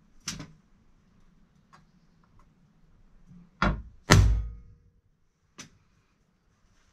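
Copper-headed hammer striking a thin metal sheet laid over round bars, bending it to shape for an expansion-chamber belly. About four separate blows, the two loudest close together near the middle.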